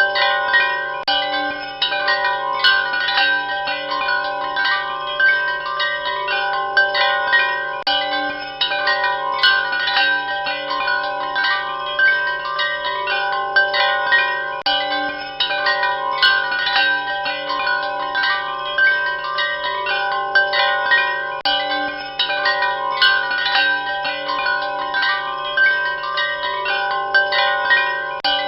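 Wind chimes ringing continuously, with frequent overlapping strikes and long-ringing metallic tones.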